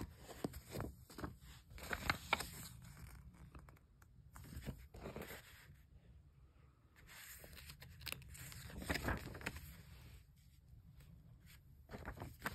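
Glossy paper inserts from a Blu-ray case rustling and sliding against each other as they are handled, in three short spells with quiet pauses between.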